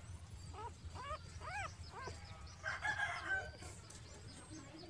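Rooster crowing about three seconds in, the loudest sound, after four short squeaky rising-and-falling calls.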